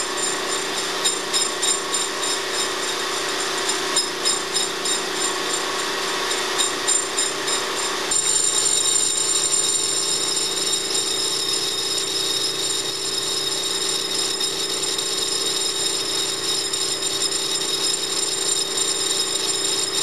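Metal lathe running with a steady machine whine while the tool takes a light one-thousandth-inch truing cut across a wheel hub's face. It pulses regularly for about the first eight seconds, then runs steadier and slightly louder.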